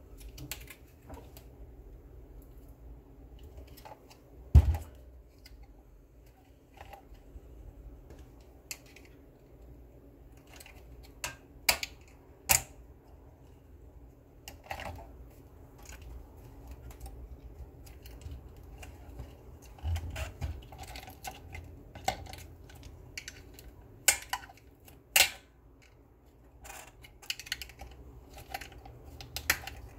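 Scattered clicks, taps and light scrapes of a Monster Blaster speaker's mesh grille and plastic housing being handled and pried apart, with one louder knock about four and a half seconds in.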